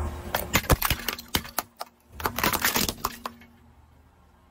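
A brittle white object shattering under a car tyre, its shards clattering onto asphalt: two flurries of sharp cracks and clicks, the second starting about two seconds in.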